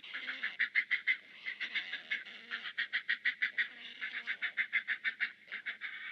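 Great blue heron nestlings begging for food from a parent: a fast run of harsh clacking calls, about seven a second, in several bouts with short pauses.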